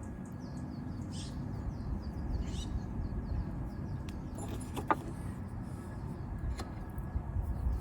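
A steady low rumble with a few light metallic clinks from handling tools or brake parts, a sharp one about five seconds in and another about a second and a half later.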